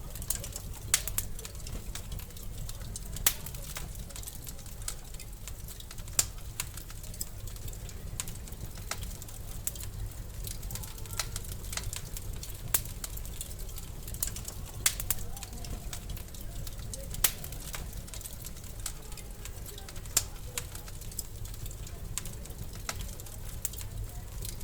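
Wood fire crackling in a fireplace: a steady low rumble of burning with irregular sharp pops and snaps, a few of them much louder than the rest.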